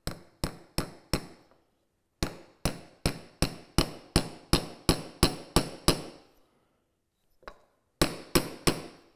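Small steel hammer tapping a steel roll pin into a drilled hole in a wooden block, driving it home. About three blows a second come in three runs with short pauses, each blow a sharp metallic tap with a short ring.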